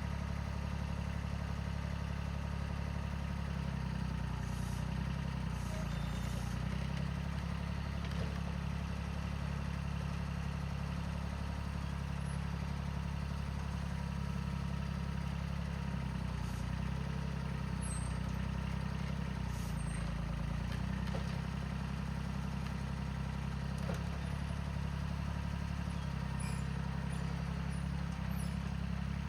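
Tractor engine running steadily, its pitch shifting slightly a few times.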